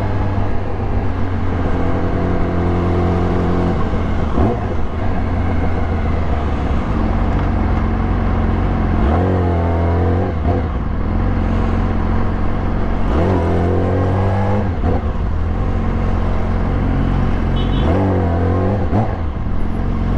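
Yamaha YZF-R6 sport bike's inline-four engine running, with the revs climbing and dropping back about three times as the throttle is opened and closed.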